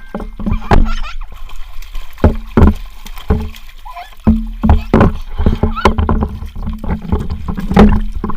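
Water being splashed and slapped in a small pool, in about a dozen irregular strokes, with a steady low hum under much of it.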